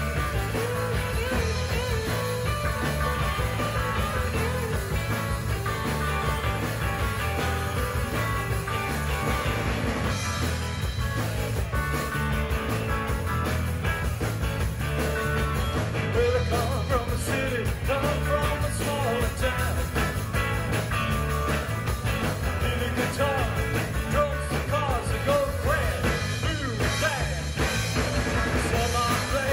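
Live rock band playing, with two electric guitars, an electric bass and a drum kit.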